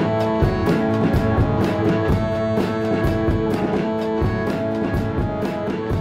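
Instrumental background music with guitar and a steady drum beat.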